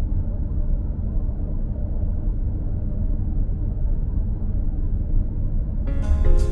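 Steady low rumble of a car driving along, with no change in pace. Guitar music comes in near the end.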